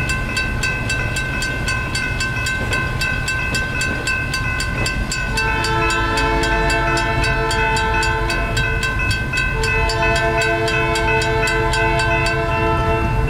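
Railroad grade-crossing signal bell dinging rapidly and steadily. About five seconds in, the train's horn starts blowing in long held blasts with short breaks. The crossing bell stops shortly before the end while the horn carries on.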